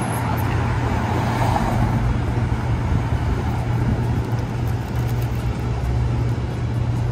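City street traffic noise: a steady low hum of a running vehicle engine under a constant hiss of road noise.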